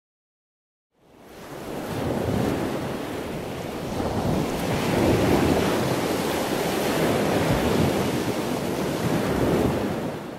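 Steady rushing noise like ocean surf, fading in about a second in, swelling gently and fading out at the end.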